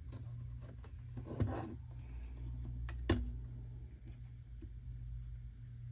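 A pry tool working small metal retaining tabs up on a Uconnect radio unit: faint ticks and a short scrape, then one sharp click about three seconds in, over a steady low hum.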